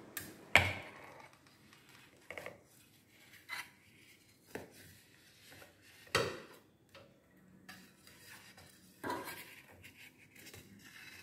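A knife cutting through steamed idli knocks and scrapes against the steel idli plate: about six irregular clinks, the loudest about half a second in.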